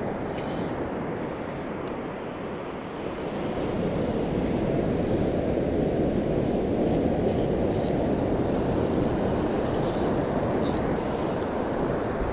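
Steady rushing of wind and surf on the microphone, a little louder after about three seconds, with a few faint clicks from handling of the rod.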